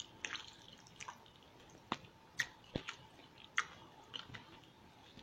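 A person chewing food close to the microphone: faint wet mouth clicks and lip smacks, with a handful of sharper clicks spread through.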